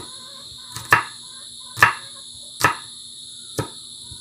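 Knife chopping on a wooden board, a sharp stroke about once a second, over a steady high drone of insects.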